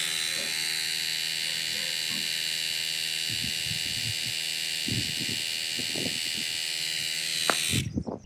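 Xiaomi Mi 1S portable electric air compressor running steadily, pumping up a bicycle tyre through a hose on the valve, with a high, even motor whine. It stops abruptly near the end, with the front tyre filled.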